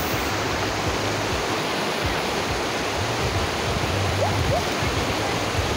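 Steady rush of a river running over rapids.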